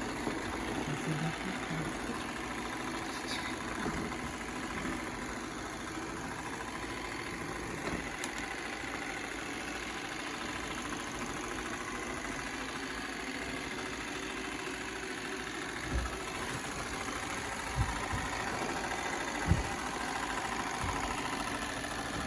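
Robot vacuum cleaner running steadily, its motor and brushes making a continuous whirring hum. A few short low thumps come in the last few seconds.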